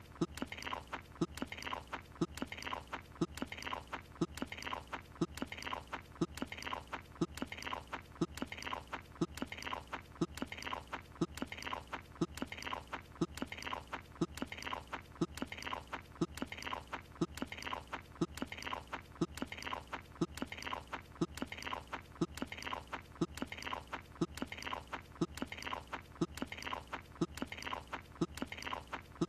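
Cartoon chewing sound effect: a character munching on a croissant, the same chew repeating in a steady loop about once a second.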